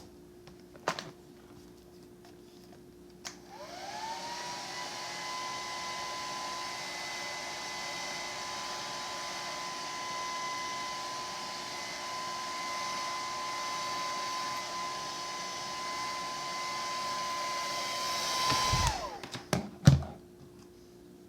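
Wig blow dryer clicked on, its motor whine rising quickly to a steady pitch over a rush of air; it runs for about fifteen seconds, then is switched off and winds down, followed by a few knocks of it being handled.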